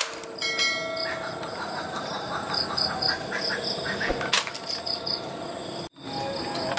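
Insects chirping in a steady pulsing rhythm, with frogs calling. About four seconds in, a single sharp pop as the toy air ball blaster fires. Near the end the sound drops out for a moment.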